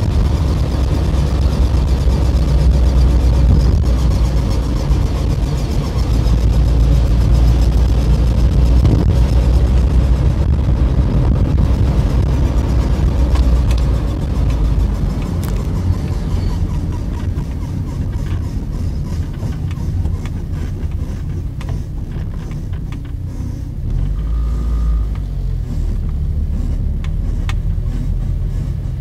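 A 1996 Infiniti G20t driving with a repeated squeak from its wheels, its rate following road speed, over the car's low road and engine rumble. The squeak appears only once the car has been driven for a while.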